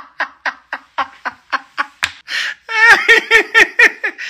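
A man laughing: a run of short, evenly spaced 'ha' pulses, about four a second, then a sharp breath in and a longer, wavering stretch of laughter in the last couple of seconds.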